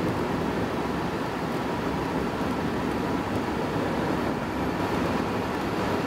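Rimac Nevera electric hypercar at about 260 km/h: a steady roar of wind and tyres with a faint steady whine, the car still gaining speed under part throttle.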